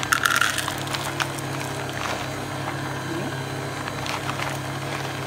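Chocolate chips rattling and clicking out of a crinkly plastic bag into a plastic measuring cup, busiest in the first half second and then a few scattered clicks.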